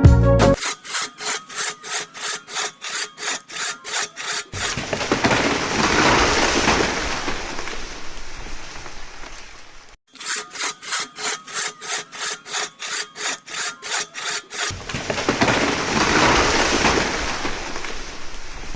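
Wood being sawn with regular back-and-forth strokes, about three or four a second, in two runs. Between the runs and near the end there is a steady hiss.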